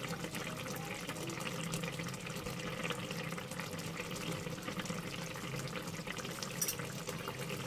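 Rui fish and eggplant curry bubbling as it simmers in the pot, a steady liquid bubbling with many small pops.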